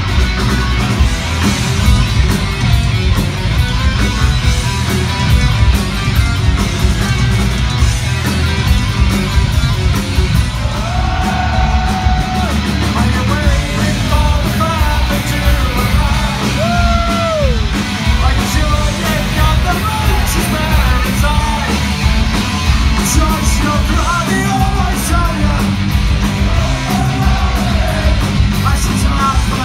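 Live thrash metal band playing loud, distorted electric guitars, bass and drums, with shouted vocals coming in about ten seconds in.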